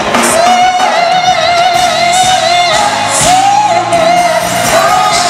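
Male R&B singer belting long held notes with vibrato into a microphone over a live band, one long note followed by shorter ones.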